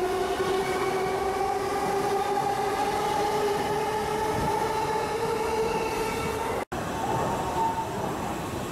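E233-series electric train's motors whining as it pulls out of the station, several tones climbing slowly and steadily in pitch over the rumble of the cars. The sound breaks off suddenly near the end.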